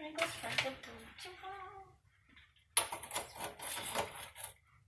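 Soft, untranscribed talking for about two seconds, then a short pause and a couple of seconds of scratchy rustling and light clicking handling noise.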